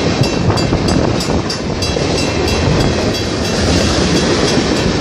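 Freight train tank cars rolling fast past at close range: a steady rumble of steel wheels on rail with evenly repeated clacks as the wheels cross the rail joints.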